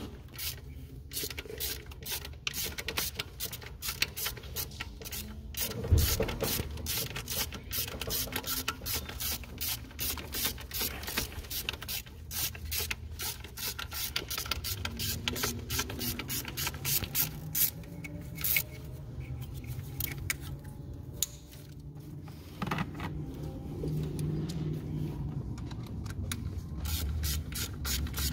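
Hand ratchet clicking in quick runs as T30 Torx bolts are run down on a fuel rail, with one louder knock about six seconds in and a short break in the clicking past the middle.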